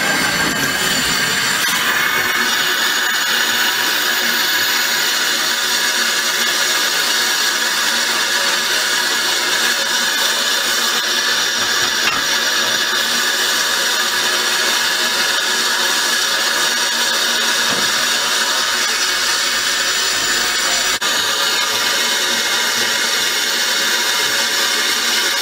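Narrow-gauge saddle-tank steam locomotive Welsh Pony blowing off steam at its safety valves: a loud, steady hiss with several whistling tones in it, the sign that the boiler is at full pressure.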